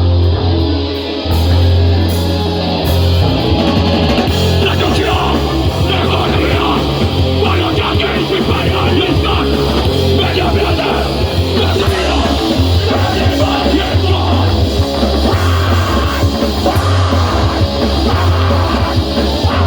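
Noisecore band playing live: distorted guitar, bass and drums in a loud, dense, unbroken wall of sound.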